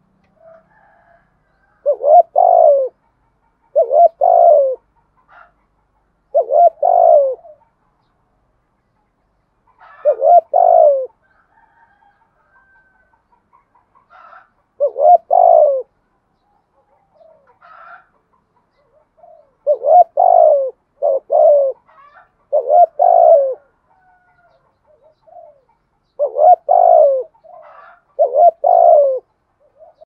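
Spotted dove cooing: short phrases of two or three falling coos, repeated every few seconds and sometimes in quick pairs. Faint chirps of small birds come in the gaps.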